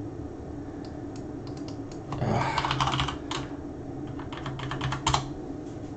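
Typing on a computer keyboard: irregular runs of key clicks, busiest a couple of seconds in and again near the end, over a low steady hum.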